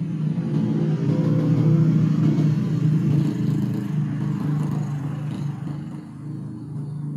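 A motor vehicle passing: a low engine rumble with tyre noise that swells about two seconds in and fades over the following seconds, leaving a steady low hum.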